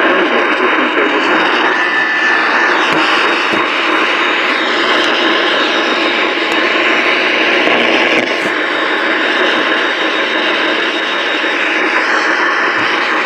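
Steady static hiss from an AM radio receiver, loud and even, with only a brief faint tone about two seconds in.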